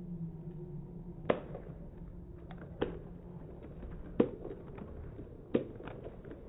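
Four sharp knocks, evenly spaced about a second and a half apart, echoing in a large domed stadium over a low background hum.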